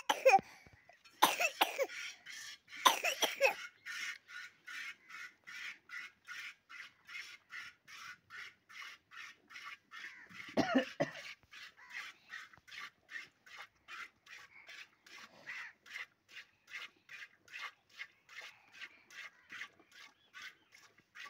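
Milk squirting into a pail as a cow is milked by hand, in a steady rhythm of about three squirts a second. A few short, louder sounds break in during the first few seconds and once about halfway through.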